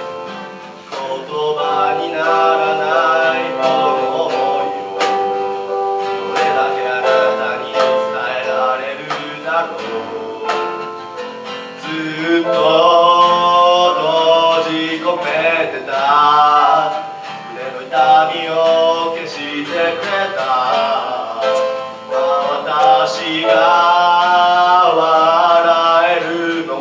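A small acoustic band playing live: strummed acoustic guitars, a keyboard and cajon hits. Held notes fill the first seven seconds or so. A wavering lead melody, most likely male singing, comes in about twelve seconds in.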